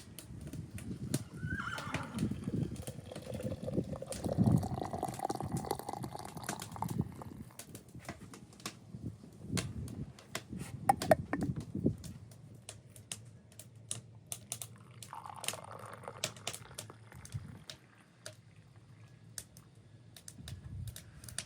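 Tea being poured into a cup, the pitch of the pour rising as the cup fills, among clinks and knocks of crockery and cutlery.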